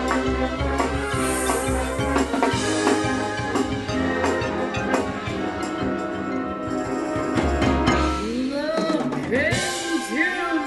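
Marching band playing at full volume: sustained brass chords over a drum line with snare and bass drum hits. From about eight seconds in, a cluster of swooping pitch glides takes over before the full band comes back in.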